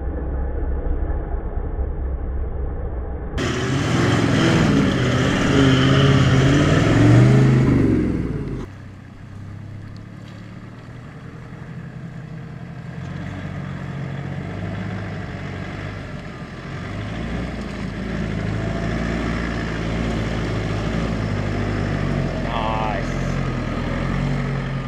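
Four-wheel-drive engines working up a steep, rutted dirt climb. For several seconds the engine revs up and down loudly, then it runs more quietly and steadily under load.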